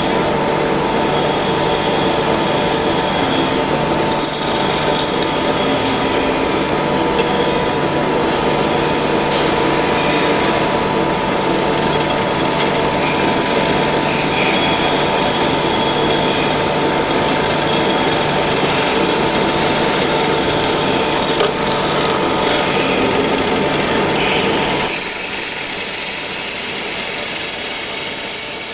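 Automatic lathe running and cutting: a steady mechanical noise with a constant whine. About 25 seconds in, the low hum drops away and a higher hiss takes over.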